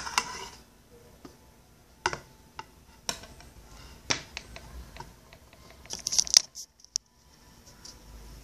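Scattered sharp clicks and clinks of a spoon and a stainless steel bowl being handled, roughly a second apart, with a short burst of clatter about six seconds in.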